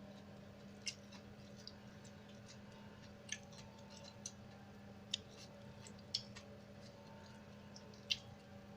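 Cutlery clinking against a plate while eating: about six light, sharp clicks at uneven gaps of roughly a second, over a steady low hum.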